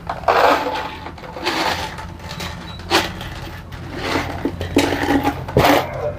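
Irregular scraping, rustling and knocking of hands working on a wooden speaker cabinet and its drivers, in short bursts with sharp clicks, over a steady low hum.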